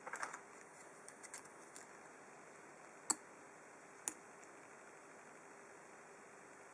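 Small sharp clicks and taps of metal tools and lock parts as a brass padlock is taken apart by hand. There is a quick cluster at the start, a few light ticks after, and two sharper clicks about a second apart.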